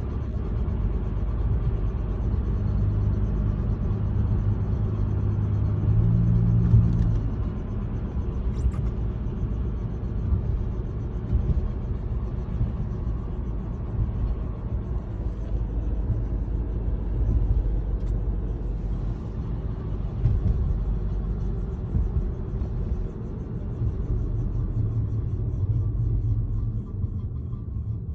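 Audi's engine and road rumble heard from inside the cabin while driving, with a low hum that swells about six or seven seconds in.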